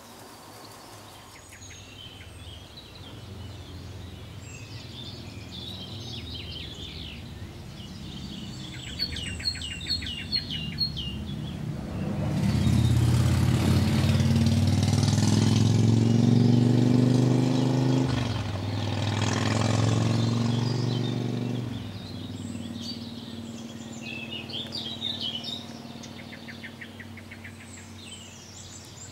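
Garden ambience with small birds chirping, including a quick run of about six chirps about ten seconds in and more chirps near the end. In the middle, a motor vehicle's engine swells up for about ten seconds, rising slightly in pitch, and is the loudest sound; a faint steady low hum follows.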